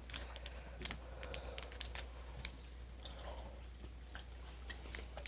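Faint, scattered crinkles and clicks of a plastic candy package being handled.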